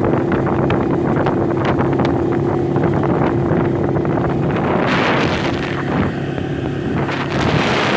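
ATV engine running steadily while riding along a dirt track, with wind buffeting the microphone, heaviest from about five seconds in.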